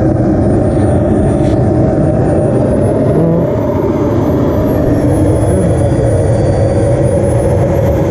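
Kingtech K80 G2 model jet turbine running steadily with its smoke system on, a constant rush with a thin high whine above it.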